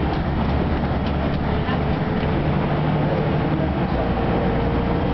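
Ikarus 260 city bus under way, heard from inside the cabin: a steady diesel engine drone with road and body noise. A faint whine comes in about two seconds in and rises slightly in pitch.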